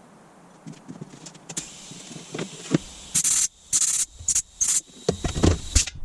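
Several short, loud bursts of pressurised gas hissing, starting about three seconds in, among clicks and knocks of metal parts being handled.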